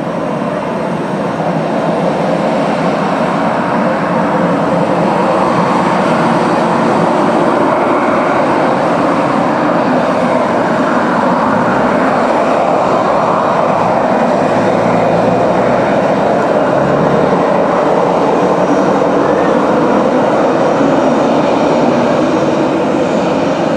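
Four PS-90A turbofan engines of an Ilyushin Il-76TD-90VD at take-off power on the take-off roll: a loud, steady jet noise that builds over the first few seconds, its tone slowly wavering as the aircraft comes closer.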